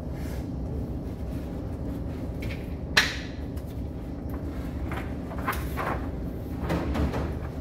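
A single sharp crack or knock about three seconds in, followed by a few softer clicks, over a steady low rumble.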